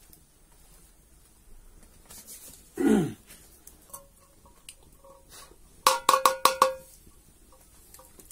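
Small metal pot clinking against metal, about six quick strikes with a ringing tone about six seconds in. A short sound falling in pitch comes about three seconds in.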